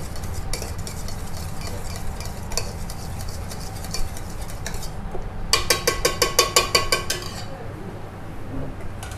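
A utensil stirring and scraping runny cheese tart filling in a mixing bowl, with scattered light clinks. A quick regular run of ringing clinks, about seven a second, lasts about two seconds past the middle, and a sharp knock comes at the very end.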